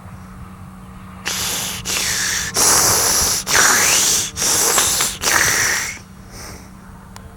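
Heavy, deliberately exaggerated breathing close to the camera's microphone: about six loud breaths in and out in quick succession, starting about a second in and stopping about six seconds in.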